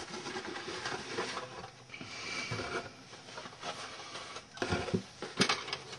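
Handling noise from a plastic scale model car kit: rustling and light knocks, with a few sharp clicks in the last second and a half.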